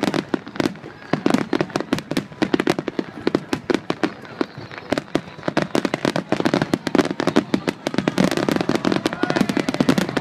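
Aerial fireworks shells bursting in rapid succession: a dense run of booms and crackles, several a second, growing thicker and more continuous in the last few seconds as many shells go off together.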